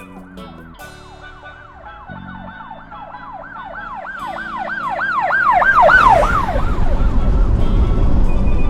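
Siren in a fast rising-and-falling wail, about three sweeps a second, growing steadily louder as background music fades. About six seconds in the wail stops and a loud, steady rushing noise takes over.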